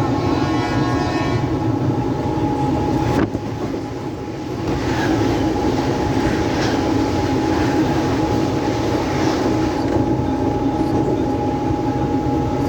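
Mumbai suburban local train running on the rails, heard from on board: a steady rumble with a constant whine. A horn-like tone sounds over about the first second and a half, and a sharp click comes about three seconds in, after which the noise dips briefly.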